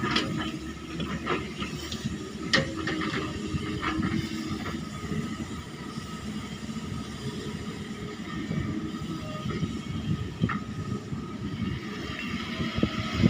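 Excavator running steadily while digging, with several sharp metallic knocks in the first four seconds and another about ten seconds in.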